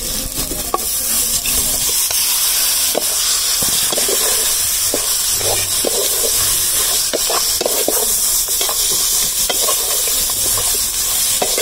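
Boiled country-chicken pieces being stirred into onion-tomato spice paste frying in sesame oil in a wide metal pot: a steady sizzle, with a metal spoon scraping and knocking against the pot again and again.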